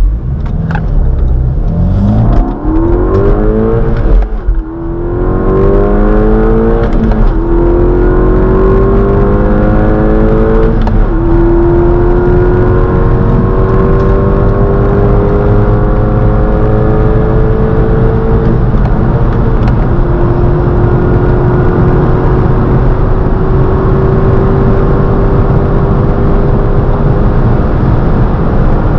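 Seat Leon Cupra R's turbocharged four-cylinder engine pulling hard through the gears, heard from inside the cabin. The revs climb in each gear and drop at upshifts about 4, 7, 11 and 19 seconds in, each gear taking longer than the one before. Steady road and wind noise run underneath.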